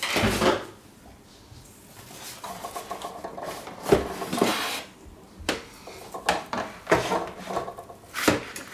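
Plastic body of a Smart Garden 9 planter being lifted out of its cardboard box: plastic rubbing and scraping against cardboard, with a loud rustle at the start and several sharp knocks in the second half.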